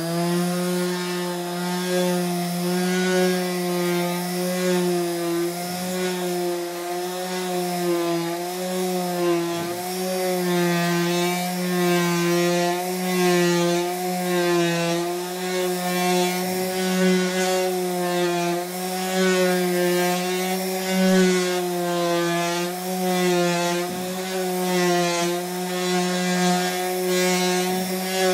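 Electric multifunction detail sander running steadily while being pushed over a wooden surface: a constant motor hum whose pitch wavers slightly as the tool is moved and pressed, with the sanding pad rasping on the wood.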